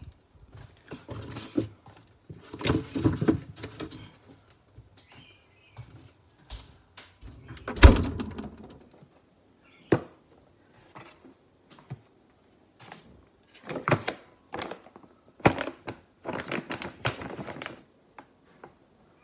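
Kitchen handling sounds: a fridge door opening and food packages being taken out and set down on a hard kitchen bench, a series of separate knocks and thunks with bits of rustling in between. The loudest thunk comes about eight seconds in.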